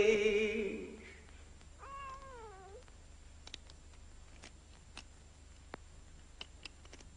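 A cat meows once, about two seconds in: a single call that rises and then falls. Faint scattered clicks follow.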